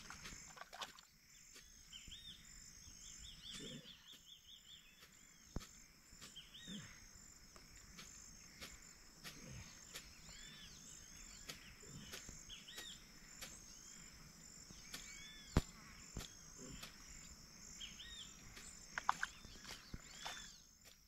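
Outdoor ambience: a steady high insect chorus with many short repeated bird calls over it. A few sharp knocks break through, the loudest about five and fifteen seconds in.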